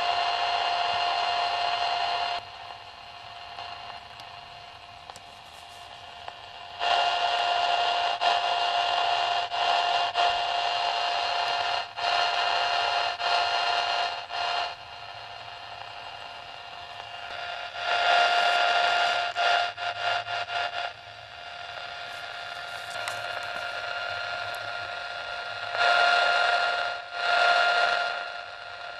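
Receiver audio of the RX2 noise bridge's noise: a hiss with a steady pitched buzz that drops to a much quieter level several times and comes back up as the tuning unit and bridge are adjusted. The quiet stretches are the null that marks a balanced bridge, a matched setting.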